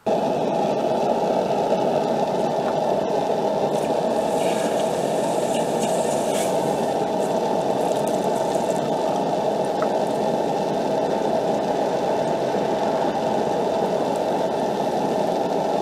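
Steady, muffled sizzling and bubbling of a hot forged steel knife blade held in a quench tank.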